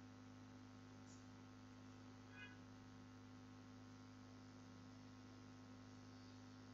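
Near silence with a steady low electrical mains hum, and one faint short sound about two and a half seconds in.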